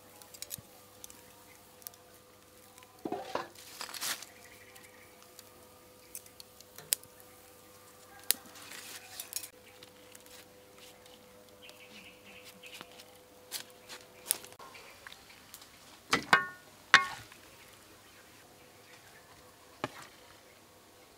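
Metal tongs clinking and knocking against a wire grill rack as pig intestines are turned over a charcoal stove: a scattering of separate sharp clinks, loudest a few seconds in and again about three quarters of the way through.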